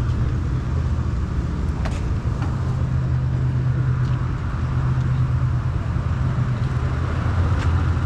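A vehicle engine running with a steady low hum under a constant noisy rumble, with a couple of faint clicks.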